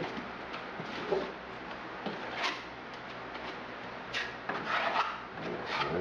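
Uneven scraping and rubbing strokes of a hand and small putty knife spreading thick, buttery rubberized waterproofing membrane over the board seams of a shower niche. The strokes come closer together in the second half.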